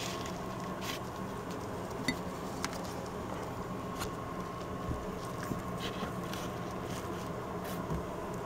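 A steady low hum with faint, scattered ticks and light scratching from small handling noises in a plastic tub lined with paper towel.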